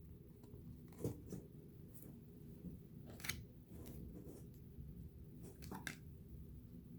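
Faint handling of trading cards and their packs: a handful of short snaps and rustles as cards are slid and flipped and wrappers handled, over a faint steady low hum.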